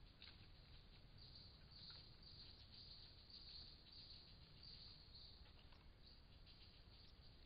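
Faint forest insects chirping in repeated high-pitched pulses over a steady low background hiss.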